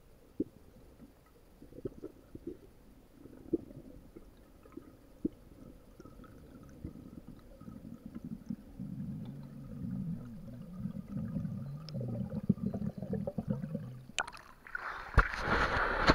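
Muffled underwater rumbling and scattered knocks around a camera held by a freediver, with a low wavering drone in the middle. About fourteen seconds in the camera breaks the surface and loud splashing water takes over.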